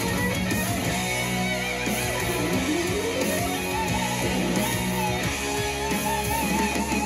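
Instrumental music led by guitar, with a note sliding up in pitch about two and a half seconds in.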